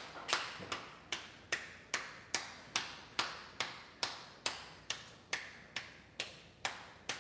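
Hands patting a ball of corn masa back and forth to shape a tortilla by hand: a steady rhythm of soft slaps, a little over two a second.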